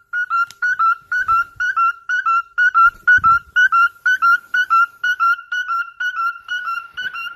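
Cockatiel whistling the same short note over and over, about three to four notes a second, each with a slight upward flick. There are a couple of soft thumps in between.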